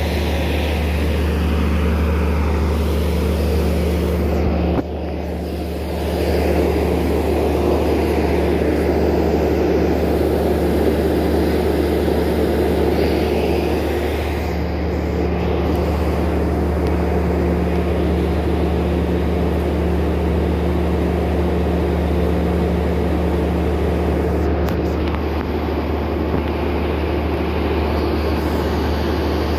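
Diesel engines of a stationary passenger train running at idle: a steady, loud low drone with a constant hum. It dips briefly about five seconds in.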